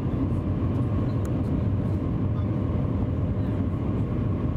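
Steady low rumble and rush of the Shanghai maglev train running on its magnetic guideway, heard inside the passenger cabin, with a faint steady tone above it and no wheel-on-rail clatter.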